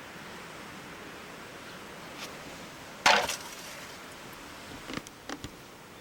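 A single sharp knock about halfway through, with a brief crackling tail, then a few lighter clicks, over a steady hiss.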